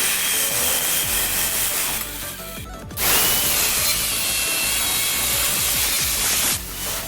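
Electric arc welding in two runs of steady hissing crackle with a faint high whine. The second run starts suddenly about three seconds in and cuts off abruptly near the end.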